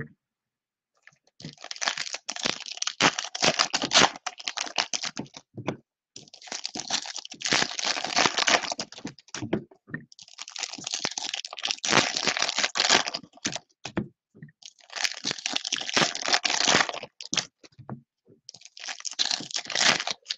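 Foil trading-card packs crinkling and tearing as they are handled and ripped open, in five bursts of a few seconds each with short pauses between.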